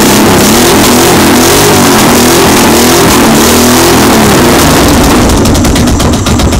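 Loud 1986 Honda Shadow 1100 V-twin engine running on open exhaust. It is blipped up and down several times, then drops back to a pulsing idle about five seconds in. The owner says it still has a slight miss.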